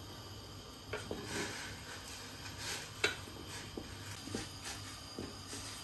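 Dishes and utensils being handled: scattered light clinks and knocks, with one sharper clink about three seconds in, over a faint steady hum.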